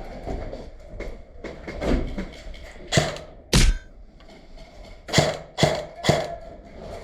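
A series of sharp knocks and thuds: one about three seconds in, a heavier deep thud half a second later, then three more about half a second apart near the end.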